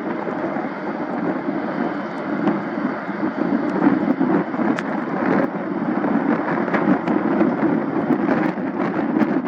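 Steady rumble of the Airbus A350-900's jet engines, with wind buffeting the microphone.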